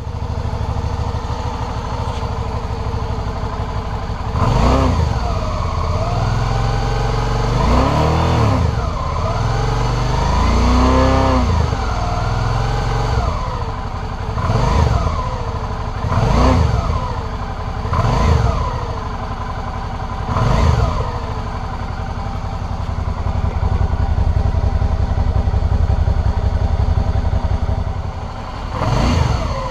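Suzuki V-Strom 650's 645 cc V-twin engine, on its stock exhaust, starting and running on the stand. It is blipped with the throttle repeatedly, each rev rising and falling back, then held steadily for several seconds before one more rev near the end.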